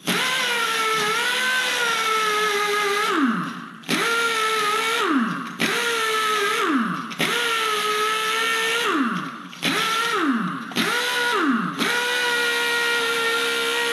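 Pneumatic air gun spinning a wire brush to scrub the brake caliper and wheel hub clean. It runs as a steady whine in about seven trigger pulls of one to three seconds, and each time the trigger is let go the whine winds down, falling in pitch.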